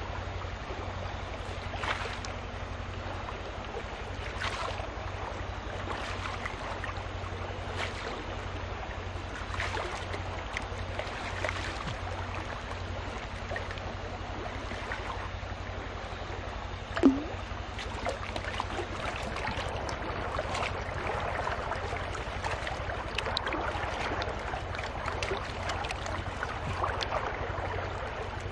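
Water sloshing and splashing as a gold pan is worked by hand in shallow water, the sediment stirred and washed over the rim, with soft swishes every couple of seconds over a steady low rumble. A single brief sharp sound a little past the middle.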